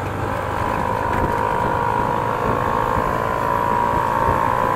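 Yamaha FZ25 motorcycle riding along, its single-cylinder engine running steadily under wind and road noise, with a steady high whine held throughout.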